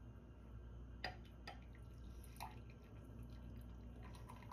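Coffee pouring faintly from a metal stovetop moka pot into a ceramic mug, with a few light clicks about a second in.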